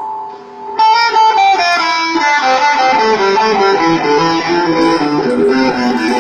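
Electric guitar being played during a sound check: a chord rings and fades, then about a second in a fast run of plucked melodic notes starts and carries on.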